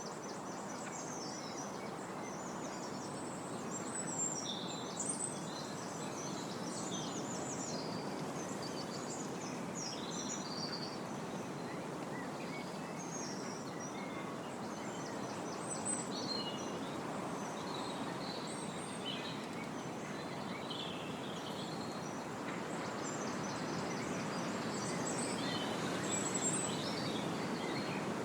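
Wind blowing steadily through trees, the leaves rustling, with several small birds chirping and singing over it in short high phrases.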